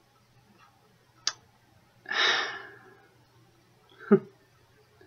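A woman's audible sigh, a long breath out, preceded by a short mouth click and followed about two seconds later by a brief voiced sound.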